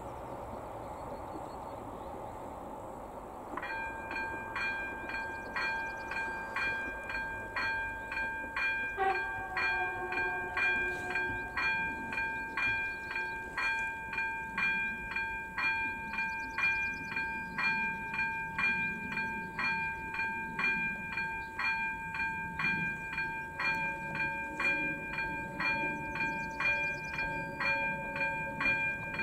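Railway level-crossing warning bell (AŽD ZV02 electronic ringer) starts about three and a half seconds in. It rings evenly at about two bright strikes a second, the crossing's signal that a train is approaching. Before it there is a steady hiss of wind, and under the ringing a low rumble grows from the middle on.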